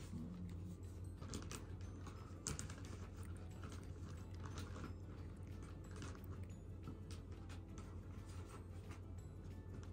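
Cat grooming itself close up, its tongue licking its fur in a quick, irregular run of small clicks and rasps.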